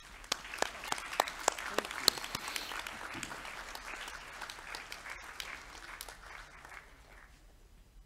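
Audience applauding: a burst of many hands clapping that starts at once, is densest over the first couple of seconds, then thins and dies away about seven seconds in.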